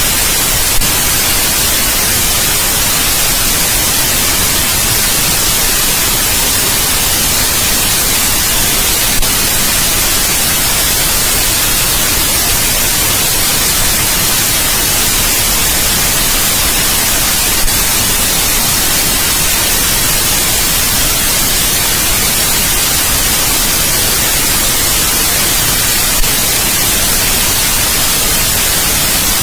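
Steady white noise, an even hiss strongest in the treble, with a brief faint tick about every eight and a half seconds.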